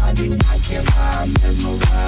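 Electronic dance music with a steady kick-drum beat, about two beats a second.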